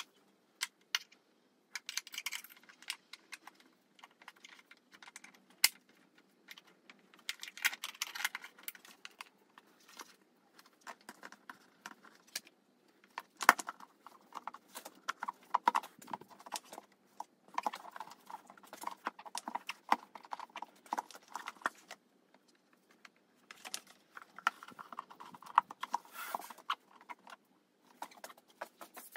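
Hard plastic motorcycle airbox lid being handled and seated onto the airbox: irregular clicks, taps and knocks of plastic on plastic, with brief scraping rustles between them.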